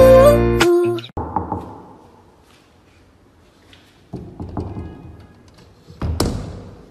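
A song cuts off about a second in; then a metal door lever and latch clunk, with a knock about four seconds in and a sharper knock just after six seconds.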